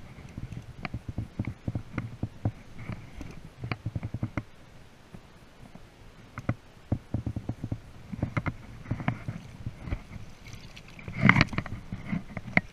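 Fly reel being wound in by hand while playing a salmon, with irregular clicks and low knocks of handling close to the camera. A louder burst comes near the end, as the landing net is put out to the fish.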